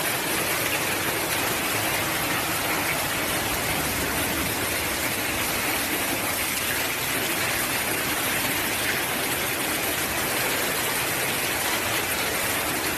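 Heavy hailstorm: hail and rain pelting the ground in a steady, dense hiss.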